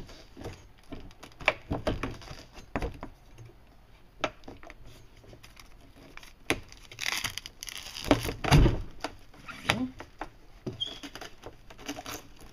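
Handling noise as a golf cart windshield panel is set into its rubber bottom extrusion: scattered light taps and knocks, with a longer rustle and a heavier thump about seven to nine seconds in.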